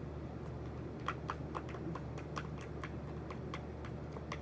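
Homemade glue-and-Tide slime being worked by hand, giving short sticky wet clicks about four times a second from about a second in. A steady low hum runs underneath.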